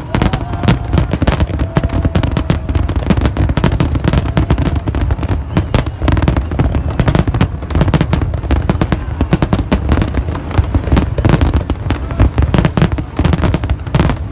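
Dense fireworks barrage: rapid, unbroken bangs and crackling reports, many a second, over a deep low rumble.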